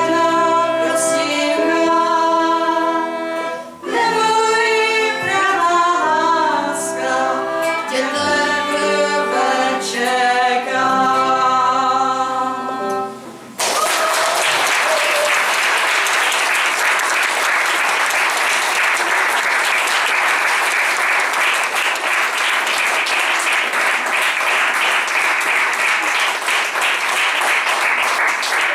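A young woman singing to acoustic guitar and violin accompaniment through the last phrases of a song, which ends about halfway through. Audience applause then starts at once and carries on steadily.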